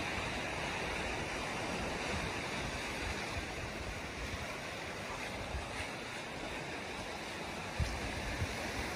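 Steady wash of sea surf on a beach, with low gusts of wind buffeting the microphone now and then.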